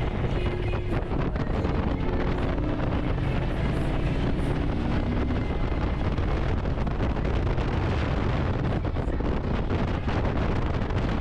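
Motorcycle riding at road speed: steady wind rush over the camera microphone, with the engine's low drone underneath.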